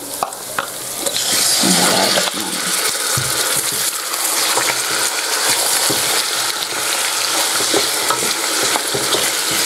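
Raw chicken pieces sizzling as they go into hot oil and browned onions in a steel pot, the sizzle swelling about a second in. A wooden spoon stirs and scrapes them around the pot with scattered light knocks.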